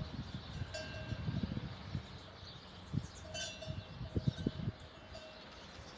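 Fighting bulls moving about a stony pen: scattered low thuds, with two short clinks, one about a second in and one about three and a half seconds in.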